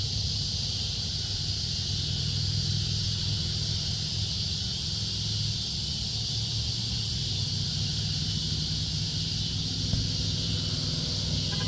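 Steady low engine hum, like a motor vehicle idling, under a continuous high-pitched hiss.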